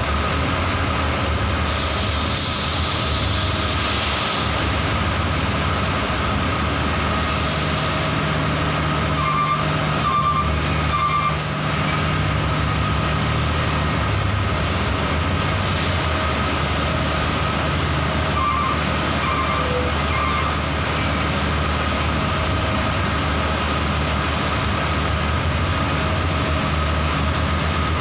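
Hino bulk cement tanker truck's diesel engine running steadily as it manoeuvres, with two hisses of air brakes about two and seven seconds in. Two short runs of quick high beeps come through around ten and nineteen seconds in.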